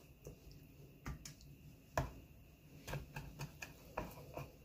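Faint knife clicks and taps on a plastic cutting board as raw chicken wings are scored and handled: a few scattered ticks, the sharpest about two seconds in.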